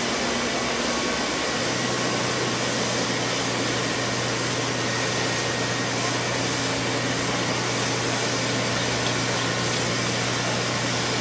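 Steady hiss of heavy rain over flooded streets, with the steady low hum of an idling engine underneath.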